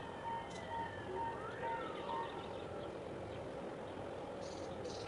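A distant siren wailing, its pitch sweeping up and down over a pulsed beeping tone, fading after about two seconds into a fainter, lower sweep. Short high chirps sound near the end over a steady background hum.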